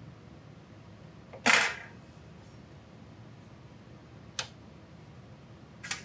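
A metal slotted polarizer plate is handled and set in place on the optics bench: one sharp clank about a second and a half in, then a lighter tap near four and a half seconds.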